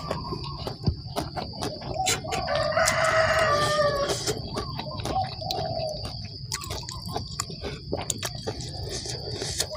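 A rooster crows once, a long call of about two seconds starting a little over two seconds in. Shorter, lower bird calls come and go around it, over small clicks throughout.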